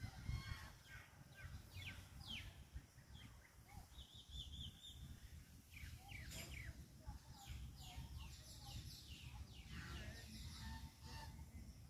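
Faint birds chirping, with many short calls falling in pitch and a brief warbling trill about four seconds in, over a low rumbling background noise.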